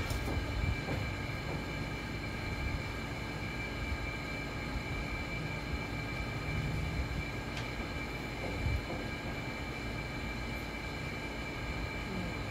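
Steady mechanical hum and rumble with a constant high-pitched whine, and a faint click about seven and a half seconds in.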